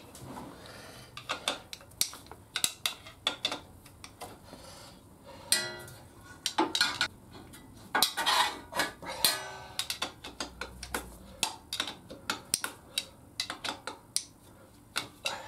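Irregular metallic clicks and clinks of a hand tool and steel bolts, a few ringing briefly, as the clutch cover bolts of a Kawasaki Vulcan 1500 are loosened and taken out one by one.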